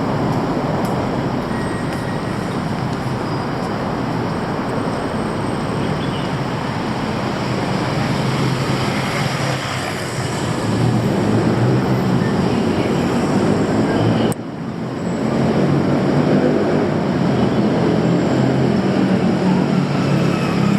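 Steady city traffic noise, with vehicle engines rumbling louder in the second half. About two-thirds of the way through, the sound drops abruptly for a moment, then comes back.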